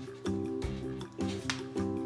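Background music: a light tune with a steady beat and repeating held notes.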